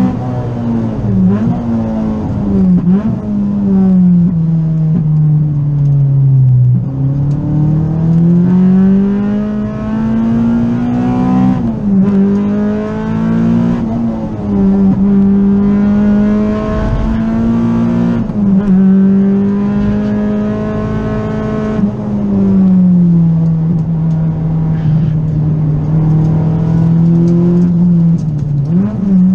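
A Honda EG Civic's B18C Type R 1.8-litre VTEC four-cylinder engine is heard from inside the cabin while it is driven hard on track. Its pitch falls under braking with quick blips on the downshifts, then climbs through the revs and holds steady through the corners, rising and falling with each gear.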